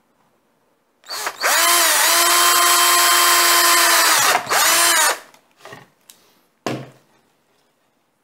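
Cordless drill with a 5 mm bit boring a hole through the vacuum cleaner's plastic housing. The motor spins up about a second in, runs at a steady pitch for about three seconds, breaks off briefly, runs again and winds down around five seconds in. A few short bursts follow.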